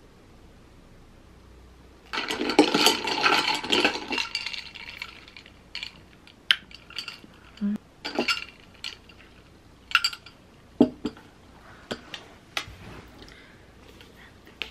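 Ice cubes clinking against a glass mug as iced cold brew is stirred with a glass straw: a quick run of rapid clinks for about two seconds, then single scattered clinks.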